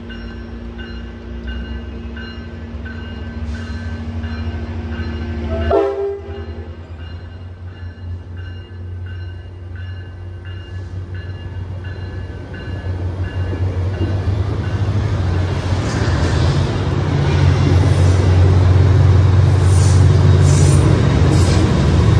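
Tri-Rail bi-level commuter train passing close by. A horn sounds briefly about six seconds in. The diesel locomotive's low engine drone then builds to the loudest sound, with wheels clicking over the rail joints as it goes past.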